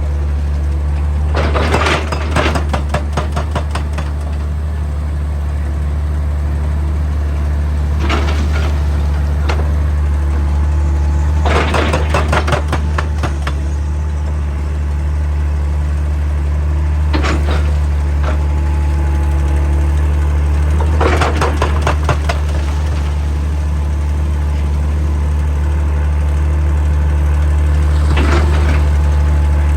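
Excavator's diesel engine running steadily with a deep hum, broken by about six short bursts of rapid impacts, each lasting a second or two, from a hydraulic breaker hammering rock.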